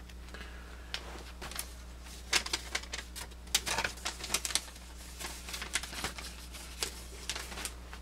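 A folded paper instruction leaflet crinkling and rustling in the hands as it is folded up: an irregular run of crackles and sharp ticks, densest and loudest in the middle.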